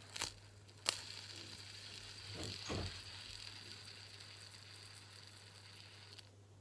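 Pop-it fidget spinner whirring on its centre bearing after a flick: a click about a second in, then a steady high whir that cuts off abruptly near the end when it is stopped.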